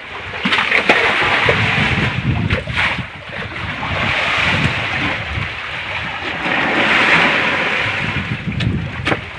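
Sea water washing and splashing around the boat in slow swells, with wind on the microphone and a few sharp knocks.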